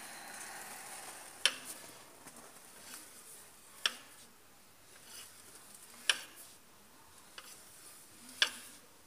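Large open-end wrench clicking on the nut of a cylinder-liner puller as a liner is drawn out of an Isuzu engine block. There are four sharp metal clicks, about two and a half seconds apart.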